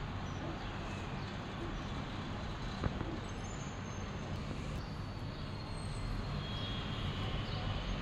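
Steady, distant city traffic rumble, with a single sharp click about three seconds in.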